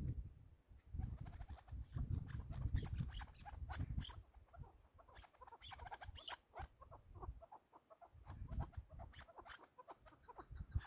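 Chukar partridge calling: runs of short, clucking chuk notes, several a second, coming and going irregularly, with a low rumbling noise underneath at times.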